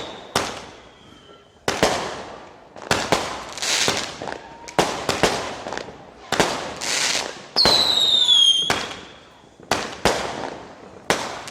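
Fireworks going off at close range: a string of loud, sharp bangs about a second apart, some trailed by a brief hiss. About two-thirds of the way in, a falling whistle lasts about a second before the next bang.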